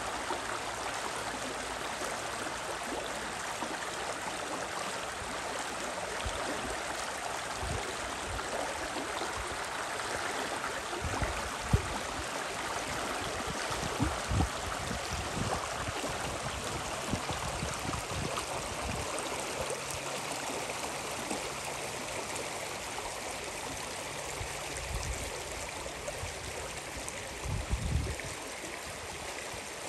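Water of the Spree river rushing steadily, an even hiss of flowing water, with a few brief low thumps, the sharpest about twelve seconds in.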